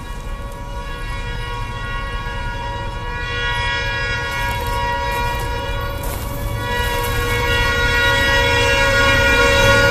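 Air horn of the approaching Kansas City Southern 'Southern Belle' F-unit locomotives, sounding long, nearly unbroken blasts for the grade crossing, over a low rumble. It grows steadily louder as the train nears.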